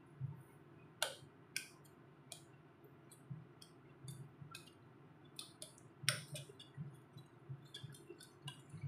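Metal spoon stirring butter into melted chocolate ganache in a glass bowl, clicking and tapping against the bowl at irregular intervals, with the loudest taps about a second in and about six seconds in.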